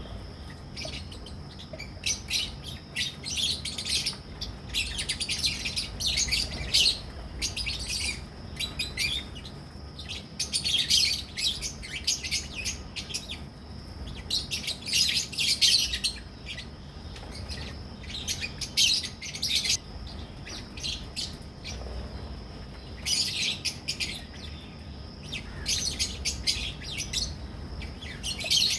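A colony of lovebirds (Agapornis) chirping: rapid, high-pitched chatter from many birds, coming in bouts of a few seconds with quieter gaps between.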